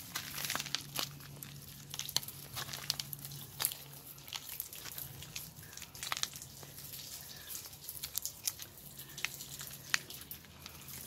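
A tortoise's feet and shell scraping and crunching over gravel, dry leaves and stone, heard as irregular light clicks and crackles over a faint steady low hum.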